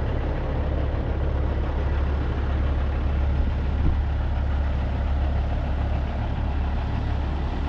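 Heavy diesel truck engine idling, a steady low rumble.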